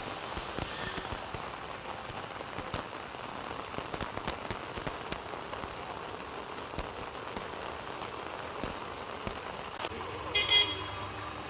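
Heavy rain pouring onto a flooded road: a steady hiss with scattered drop clicks. Near the end a brief, louder pitched sound cuts in over it.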